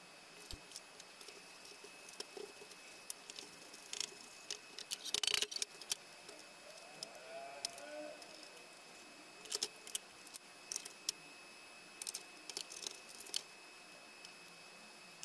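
Scattered metal clicks, taps and light rattles of hand work on an inverter's sheet-metal case and fan bracket with a screwdriver, with a busier clatter about five seconds in.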